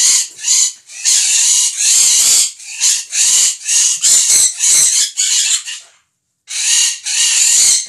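Pet parrots screaming over and over in loud, harsh bursts, excited at feeding time, with a brief pause about six seconds in.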